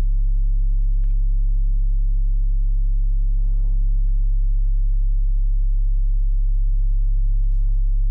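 Loud, steady low electrical hum with evenly spaced overtones, unchanging throughout. Faint rattles and crunches lie beneath it, briefly stronger about three and a half seconds in and again near the end.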